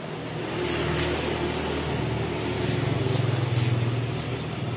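Miniature battery-powered water pump, built as a model diesel fire pump, running steadily with a low hum while water gushes from its outlet hose.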